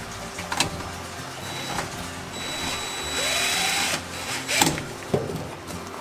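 Cordless drill running in one burst of about a second and a half, with a thin whine, over background music. A few sharp clicks and knocks come before and after it.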